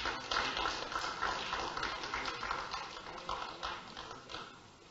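Irregular tapping and rustling in a large room, dying away over a few seconds.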